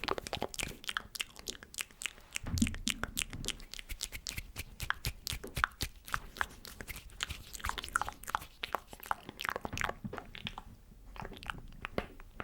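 Close-miked ASMR mouth sounds: rapid wet clicks and smacks of the lips and tongue, many a second, thinning out near the end.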